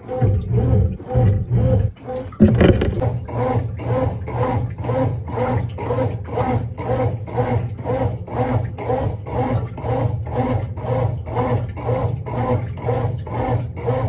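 Brastemp BWF08 top-loading washing machine agitating on a test run after a mechanical overhaul: the motor hums steadily while the belt-driven transmission and agitator work the load in a regular beat, about two and a half pulses a second. A single thump sounds about two and a half seconds in.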